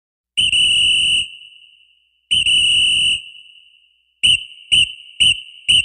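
A pea whistle blown hard: two long blasts, then four short sharp ones in quick succession.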